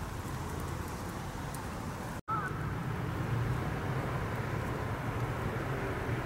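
Steady outdoor background of distant road traffic, a continuous low rumble with a faint hiss. The sound drops out for an instant at an edit about two seconds in.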